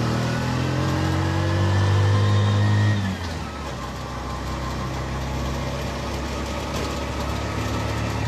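A motor vehicle's engine revving, its pitch rising for about three seconds, then dropping away abruptly, after which it runs with a steady lower hum.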